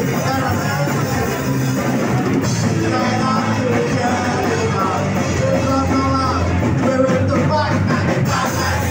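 Live rock band playing loudly with a singer shouting and singing over it.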